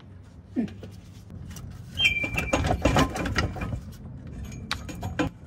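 Irregular metal knocks, clunks and scraping as a 1973 Volvo 164's Borg-Warner 35 automatic transmission is worked down on a floor jack while it is hung up on something. The knocking gets busier and louder about two seconds in, with a short squeak.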